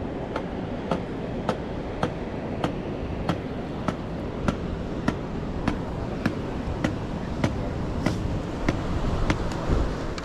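Footsteps in an even walking rhythm, a sharp step about every 0.6 seconds, over a steady rush of wind and surf.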